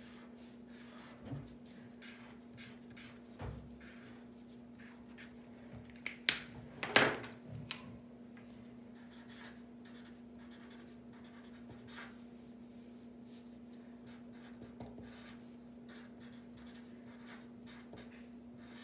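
Felt-tip markers rubbing and scratching on paper: a broad yellow marker colouring in, then a Sharpie writing. A few sharp clicks come about six to seven seconds in as the markers are capped and swapped, over a steady hum.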